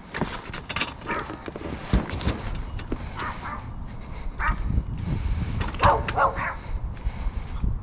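A dog barking in short bursts, with a quick run of barks about six seconds in, over a steady low rumble.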